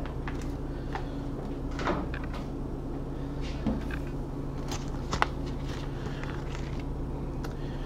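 A steady low hum with a few light knocks and clicks of things being handled, the sharpest about two seconds in and twice around five seconds in.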